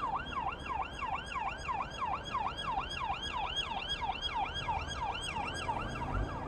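Emergency vehicle siren in fast yelp mode, its pitch sweeping up and down about three times a second.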